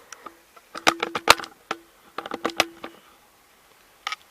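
A series of sharp clicks and taps in small clusters, some with a short faint hum under them.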